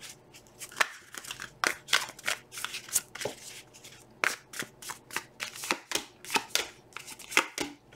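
A tarot deck being shuffled by hand, cards dropped from one hand into the other, giving an irregular run of soft card snaps and slides, a few each second.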